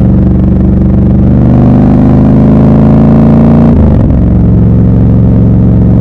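Triumph Scrambler 1200 XC's 1200 cc parallel-twin engine pulling under acceleration, its pitch rising steadily, then dropping suddenly almost four seconds in at an upshift, after which it runs on steadily.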